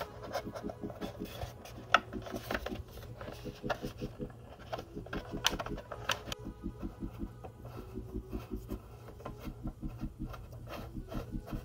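Handling and screwdriving noises on a plastic motorcycle helmet shell: scattered clicks, scrapes and rubs as a Phillips screwdriver turns the screws that fix the bat-ear attachments, with the sharpest clicks about two seconds and five and a half seconds in. Under it runs a steady rhythmic background that repeats about four times a second, likely light music.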